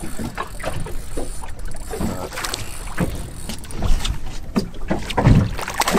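Small boat rocking on choppy water, with water slapping the hull and scattered knocks and thumps.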